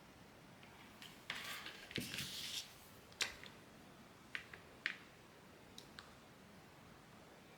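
Craft materials being handled on a work surface: a short stretch of rustling, then a few sharp clicks and taps.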